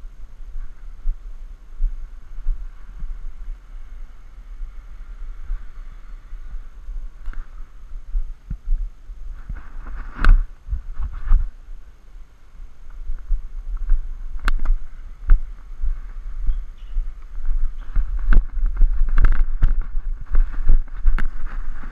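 Wind buffeting the GoPro's microphone in a steady low rumble, with sharp pops of a tennis ball struck by rackets and bouncing on the hard court: a loud one about halfway through, a few more after it, and a quick run of them in the last few seconds.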